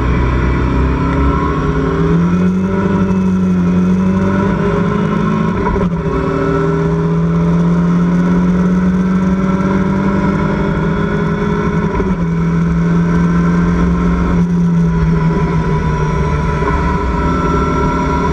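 Onboard sound of a Locost race car's engine running hard at high revs, its pitch held nearly steady and stepping down twice, about six and twelve seconds in. A steady rush of wind in the open cockpit runs under it.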